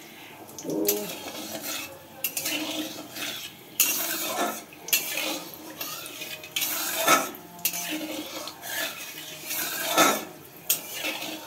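A long metal spatula scraping and stirring around an aluminium kadai in irregular strokes, a few of them much louder than the rest, while dried red chillies, cinnamon and cardamom fry in hot ghee and oil.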